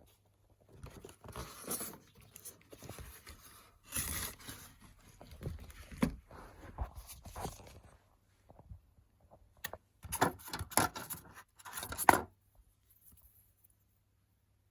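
Handling and unpacking of boxed model railway items: irregular scraping, rustling and small clicks of cardboard, packaging and parts being moved about, in bursts with a short pause partway through.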